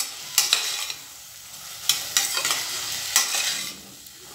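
Metal ladle stirring vegetables frying in an open aluminium pressure cooker, scraping against the pot several times over a light sizzle.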